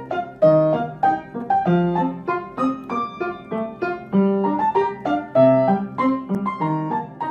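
Background piano music: a light melody of quick, evenly paced notes.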